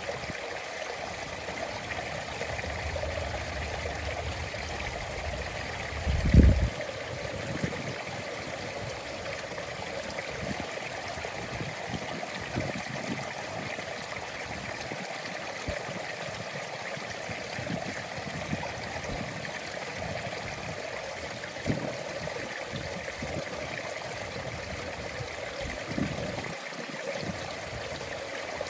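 Stream water running and trickling steadily, with a few brief low thumps, the loudest about six seconds in.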